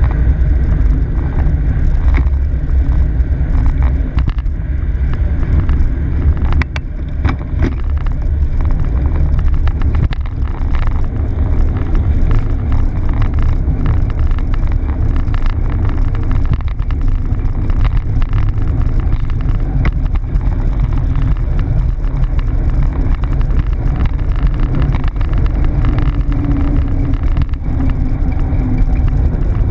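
A bicycle rolling along a concrete trail, picked up by a handlebar-mounted camera: a steady low rumble of wind and tyre-and-road vibration, with frequent small rattles and clicks from the bike.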